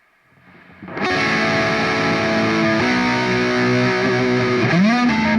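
Electric guitar played through a Hotone Ampero amp modeler on a high-gain distorted patch: after a faint hiss it comes in about a second in with a sustained chord, changes chord about three seconds in, then slides a note upward near the end.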